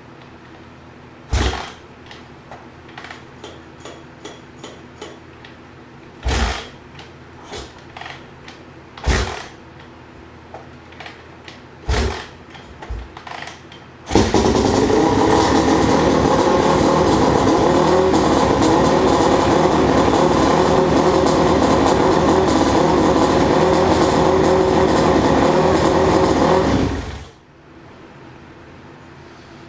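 Suzuki RM-Z450 four-stroke single-cylinder motocross engine on its first start after a top-end rebuild: a few separate thumps from kick-start attempts, then the engine runs steadily for about thirteen seconds and cuts off suddenly.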